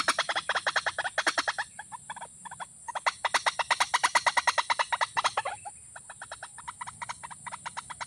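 Watercock calling: a fast, evenly repeated run of sharp notes, about eight a second, in several bursts, dropping in level about five and a half seconds in.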